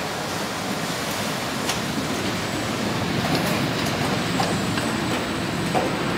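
Steady mechanical din of a car assembly line, with a few short clicks and clanks scattered through.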